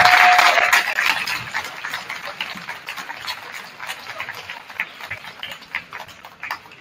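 Crowd applause and cheering dying away over a few seconds to scattered single claps. A held tone cuts off under a second in.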